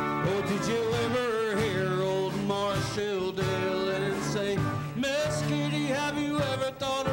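Country band playing live on acoustic and electric guitars, bass and drums. A lead melody line slides and bends between notes over a steady backing.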